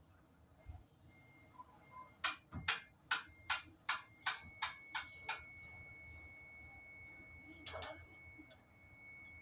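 A run of about ten sharp clicks or taps, roughly three a second and growing fainter, then one more click near the end, with a faint steady high tone from about midway on.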